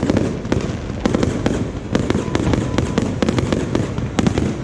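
Fireworks going off in rapid succession: a dense, continuous run of sharp bangs and crackles over a steady low rumble.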